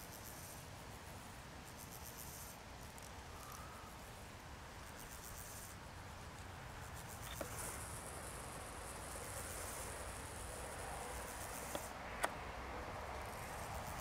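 Bush crickets (katydids) stridulating in the grass: very high-pitched, buzzy chirps in repeated bursts of about half a second to a second, with a longer unbroken buzz of several seconds through the middle. A few small clicks in the second half.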